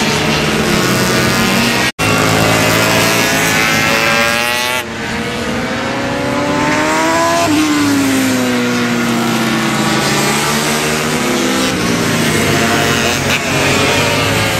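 Racing motorcycles going past at speed, their engines revving up and down, the pitch climbing as they accelerate and falling away as they pass. The sound cuts out for an instant about two seconds in.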